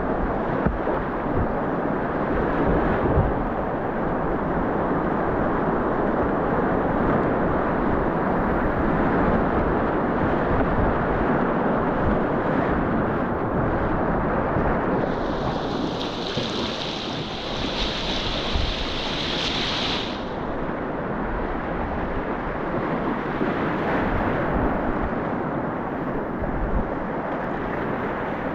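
Whitewater rapids rushing steadily around the kayak, close on the GoPro's microphone. A brighter, hissier splash runs from about 15 to 20 seconds in.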